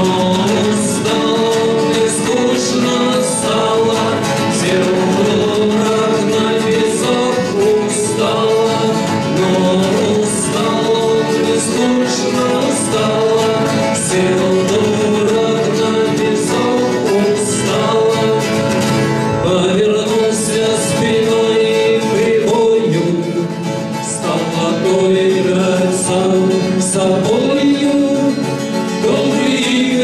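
Two men singing a Russian bard song together, accompanying themselves on strummed acoustic guitars, a six-string and a twelve-string, with a steady strumming rhythm.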